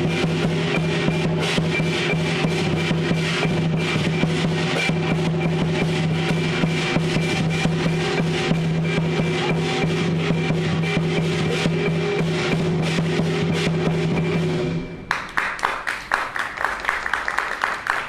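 Lion dance percussion: drum and cymbals beating out a fast, dense rhythm over a steady low ring. About fifteen seconds in the ring stops and the rapid clashing strokes go on alone, fading near the end.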